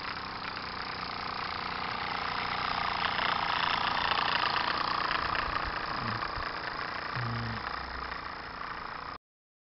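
Live-steam model traction engine running past at close range: a steady hiss of steam and mechanism noise that swells as it passes, then eases off. The sound cuts off abruptly near the end.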